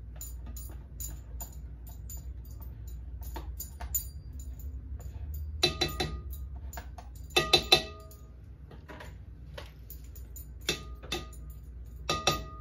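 Spoon scraping whipped topping out of a plastic tub and knocking against a glass punch bowl, with small clicks throughout and three short clusters of ringing clinks: about six seconds in, a second and a half later, and near the end.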